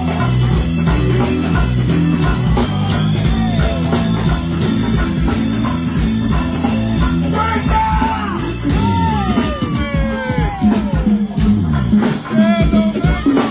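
Live go-go band playing through a stage PA: a repeating bass line under drums, percussion and guitar. About halfway through, several high calls slide down in pitch over the band, with a few more near the end.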